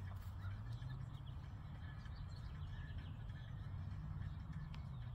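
Quiet outdoor background: a steady low hum with a few faint bird chirps.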